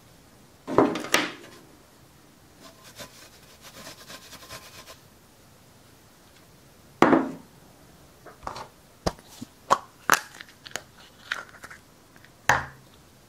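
Hands handling small objects on a wooden table: a few loud sudden noises, soft rustling, then a run of sharp clicks and taps.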